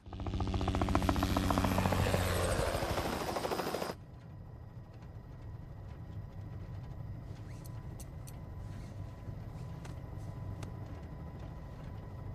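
Helicopter rotor chopping loudly in rapid, even beats. About four seconds in it drops abruptly to a quieter, steady drone heard inside the helicopter cabin.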